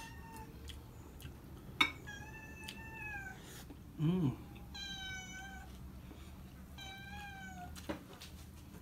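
A cat meowing repeatedly: four drawn-out meows about two seconds apart, the first right at the start. A sharp click comes about two seconds in and a short low hum about four seconds in.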